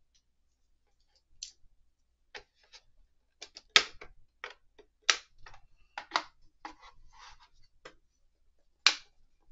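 Hard plastic parts of a collectible figure's display base being handled and pressed together: a string of short, sharp clicks and taps starting about a second in, with a few louder clicks among them.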